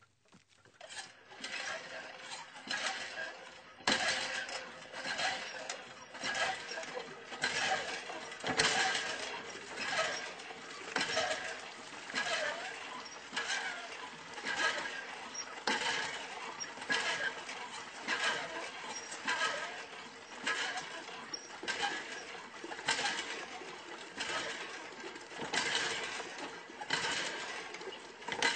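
Farm water pump working with a regular clanking, squeaking stroke about once every 1.2 seconds, over a faint steady hum.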